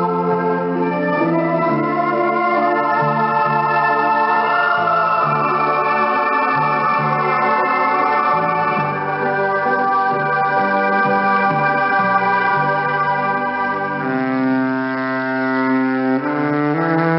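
Electric violin melody over electronic keyboard accompaniment, sustained chords changing every second or two, with a sliding note about four seconds in. Heard through a shortwave radio receiver, so the sound is narrow-band and muffled in the treble.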